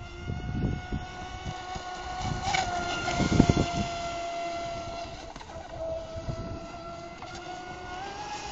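Electric motor of a Cyber Storm 33 mono-hull RC boat running at speed, a steady high whine that wavers slightly and rises in pitch near the end. Wind buffets the microphone, loudest about three seconds in.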